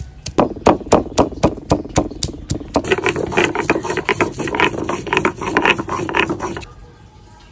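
A stone pestle pounds ginger and green chillies on a stone grinding slab (sil-nora), knocking about four times a second. Then it is rubbed back and forth over the slab, grinding them into a wet paste. The grinding stops near the end.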